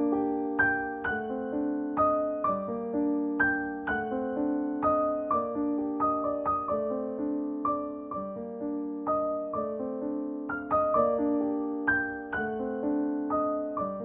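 Background piano music: a gentle, even run of single notes, each struck and fading, in a repeating melodic pattern.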